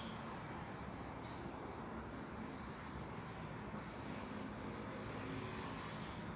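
Steady low rumble of a distant engine, with faint short bird chirps scattered over it.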